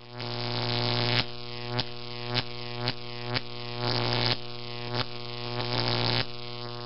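Intro music: a steady low droning tone with sharp percussive hits about every half second.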